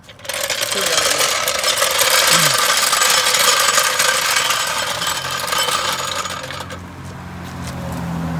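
A car makes a loud, harsh rushing and rattling noise for about six seconds, which then eases off. The engine's low steady hum comes up over the last few seconds.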